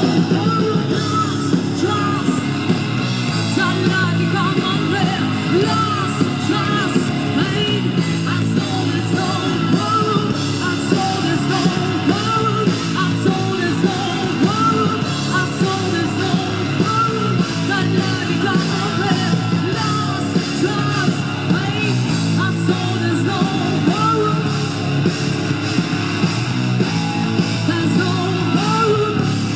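Live rock band playing loud, with drums and a shouted, sung vocal over the band.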